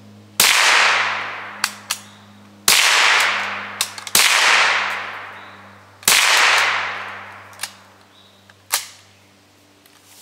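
Four shots from a Mosin-Nagant M44 bolt-action carbine (7.62×54mmR), each a sharp crack followed by a long echo fading over one to two seconds. Short metallic clicks of the bolt being worked come between shots and twice after the last one.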